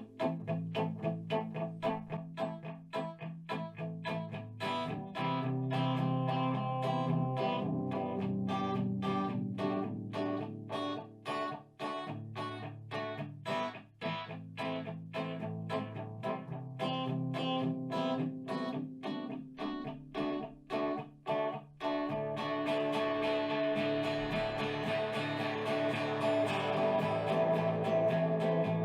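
Background music: guitar-led track with a steady run of plucked notes, growing fuller and more sustained about three-quarters of the way through.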